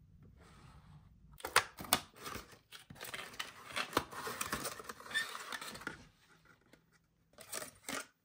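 Cardboard toy packaging being opened by hand: a couple of sharp snaps as the flaps are pulled free, then several seconds of cardboard rustling and scraping with small clicks, and a few more clicks near the end.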